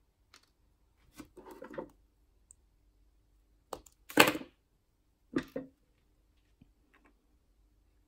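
Small parts and hand tools being handled on a workbench while wiring a guitar pickguard: scattered light clicks and rustles in short clusters, the loudest a rustle about four seconds in.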